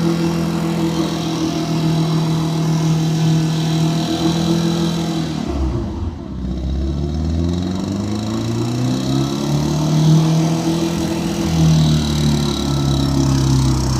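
Toyota Corolla KE30's 3K four-cylinder engine running hard at high revs; about six seconds in the revs drop briefly, then climb again over the next few seconds.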